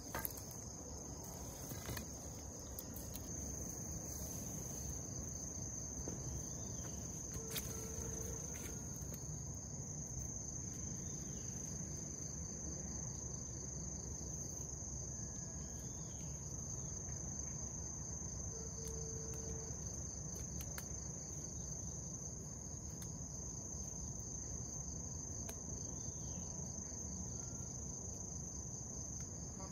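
Steady, high-pitched buzzing trill of insects, unbroken throughout, over a low outdoor rumble, with a few faint clicks.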